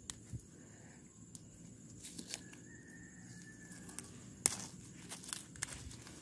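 Water shoots being snapped and torn off the trunk of a grafted coffee tree by a gloved hand: scattered snaps and leaf rustling, the sharpest snap about four and a half seconds in.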